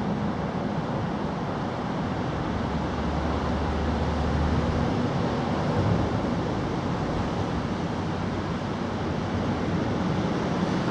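Steady outdoor background noise, an even rumble and hiss, with a low hum for a couple of seconds a few seconds in.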